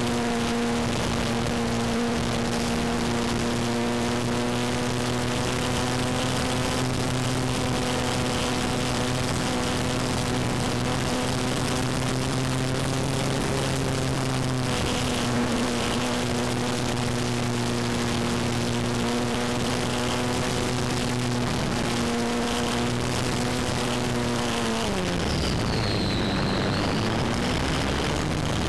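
Electric motor and propeller of a model Tucano plane, heard from a camera on board, running at a steady pitch over rushing wind noise. About 25 seconds in, the motor slows and its pitch drops sharply, then climbs back up near the end.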